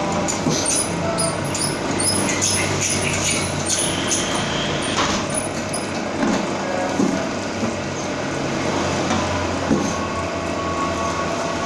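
A steady low mechanical hum, with a run of sharp clicks and taps in the first half.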